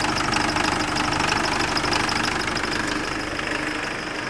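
Nissan Frontier engine running at idle with a fast, even metallic rattle, the customer's engine noise. The mechanic traces it to a stretched timing chain with worn teeth and a broken chain guide, which leaves the engine timing out of sync.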